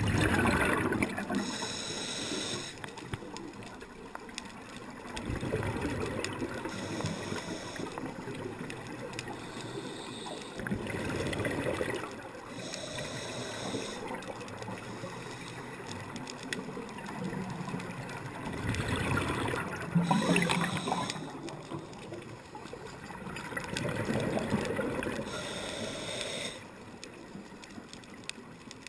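Scuba diver breathing through a regulator underwater, heard through a GoPro's waterproof housing: a hissing inhale, then a louder rush of exhaled bubbles, repeating about every five to six seconds, some five breaths in all.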